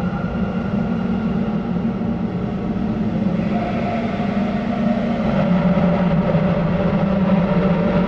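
Soma Labs Lyra-8 analog drone synthesizer playing a dense, gritty drone of held low and mid tones. A higher tone comes in about three and a half seconds in, and the low drone shifts in pitch a little later.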